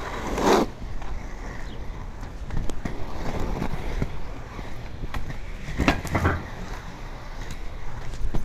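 Powerslide Kronos Reign three-wheel inline hockey skates rolling over street pavement, a steady grinding roll with a few louder knocks about half a second in and twice around six seconds in.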